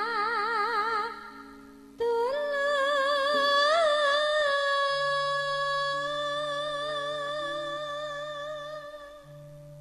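A woman singing into a microphone over a stage PA. She sings a short phrase with wide vibrato, then from about two seconds in one long held note with vibrato that fades near the end. Soft held accompaniment notes play underneath.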